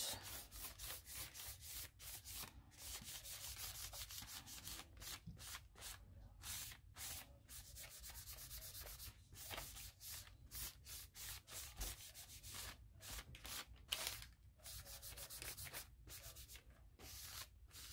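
Faint scratchy rubbing strokes of paint being worked across a paper journal page, repeating a few times a second with short pauses.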